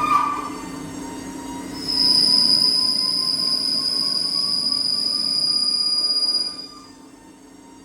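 DynaTurn 102 CNC lathe cutting stainless steel: a loud, steady high-pitched squeal from the cut sets in about two seconds in and stops near the end, over the machine's hum. Beneath the squeal a lower whine slowly rises in pitch.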